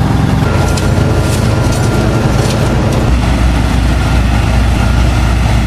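Heavy diesel engines of road-paving machinery, a dump truck and an asphalt paver, running steadily with a deep low hum; the engine sound shifts deeper and stronger about three seconds in.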